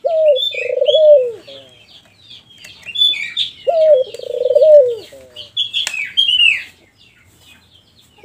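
Albino dove cooing: a long wavering coo at the start, another about 3.7 s in, and a third beginning at the very end, over steady high chirping from small songbirds. A sharp click sounds near 6 s.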